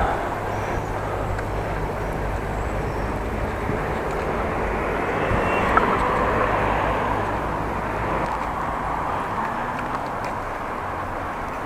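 Steady wind rumble and road noise on a bicycle-mounted action camera while riding, with traffic noise that swells a little about halfway through and fades again.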